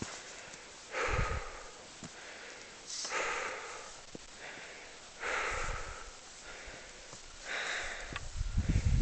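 A person breathing heavily, with deep rasping breaths about every two seconds and fainter ones in between. The breathing is laboured from the thin air at 5,644 m altitude. A louder low rumble comes in near the end.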